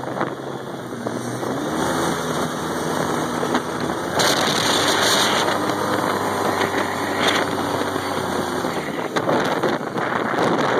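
Dirt bike engine revving up and down as the bike rides, heard at a distance under heavy wind buffeting on the microphone, loudest about four seconds in.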